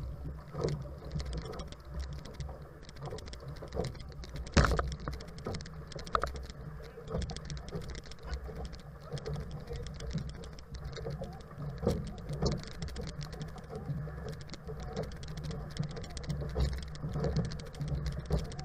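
Water splashing and slapping against a racing outrigger canoe's hull as the crew paddles, with irregular knocks and clicks over a steady low rush of water and wind, one knock about four and a half seconds in louder than the rest.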